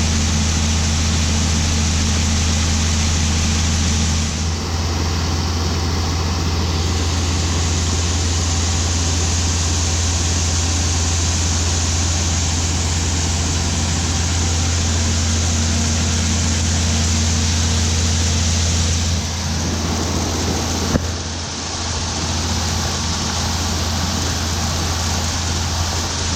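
Heavy farm machinery's engine running steadily under load, with a single sharp click about three-quarters of the way through.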